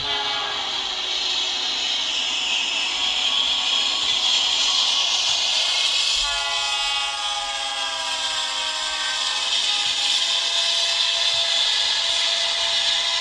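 Train running with a steady hiss, and a train horn sounding one long blast from about six seconds in, its pitch sagging slightly as it goes.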